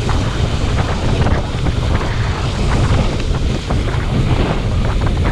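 Whitewater rapids rushing and splashing around a raft, with heavy wind rumble on the microphone.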